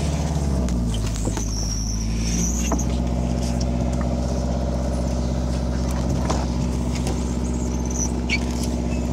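Diesel engine of the ferry's pusher boat running steadily under way, a deep even drone whose note shifts slightly under a second in. A few faint high squeaks sound above it.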